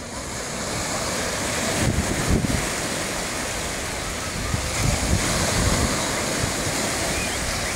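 Small waves breaking and washing up on a sandy shore. Wind buffets the microphone in gusts about two seconds in and again around five seconds.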